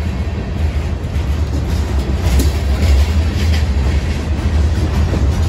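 Freight cars (covered hoppers) rolling past at close range: a steady low rumble of steel wheels on rail, with a few sharper clicks from the wheels.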